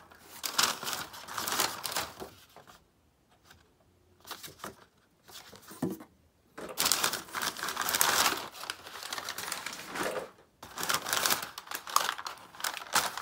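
Crumpled brown kraft packing paper crinkling and rustling as hands pull it out of a cardboard box, in several spells with two short quiet pauses.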